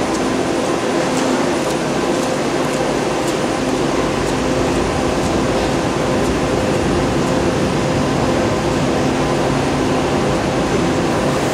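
Steady hum of a BART train standing at an underground station platform, with several steady tones in it. A few faint light ticks sound in the first few seconds.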